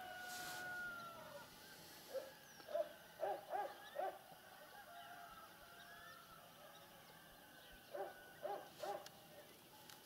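Faint short hooting animal calls in two runs, four notes and then three, about three a second, with a soft falling whistle near the start.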